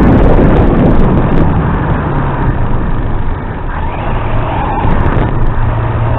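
Turnigy Trooper Pro RC car driving, picked up as a loud, rough rumble and hiss through the low-quality onboard recording; a low steady hum joins in about two seconds in.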